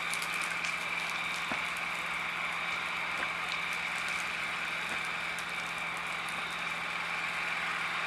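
Dry grass burning, with scattered sharp crackles over a steady hiss and a low, even engine hum.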